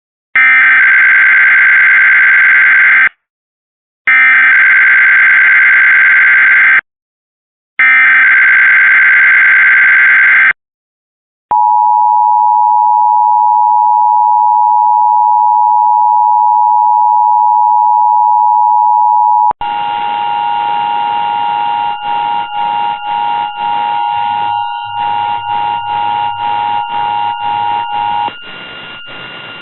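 Emergency Alert System test off broadcast radio: three screeching SAME data-header bursts, each about three seconds long with short gaps between them, then the steady two-tone EAS attention signal. About twenty seconds in the tone drops in level under a hiss and crackle of static, and it stops near the end.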